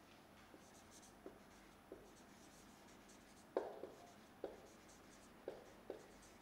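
Marker pen writing on a whiteboard: faint strokes with light taps as each letter is put down, several sharper taps in the second half.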